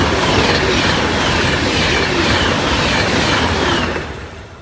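A train passing close by at speed, a loud rushing of wheels and air that dies away about four seconds in as it goes past.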